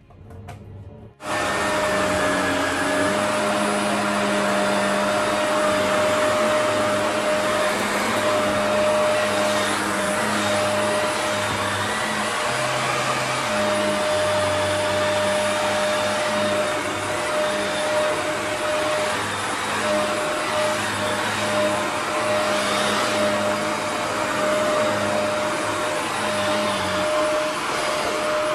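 Shark Navigator Anti-Allergen Plus upright vacuum switching on about a second in, then running steadily with a constant whine as it is pushed back and forth over carpet.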